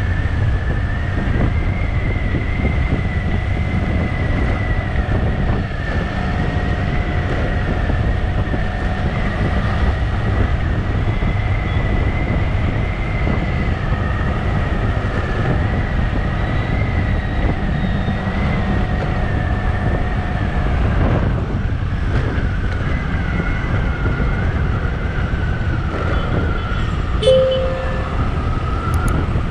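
Motorcycle running at a steady cruising speed with road and wind rumble and a steady high whine. A horn gives one short beep near the end.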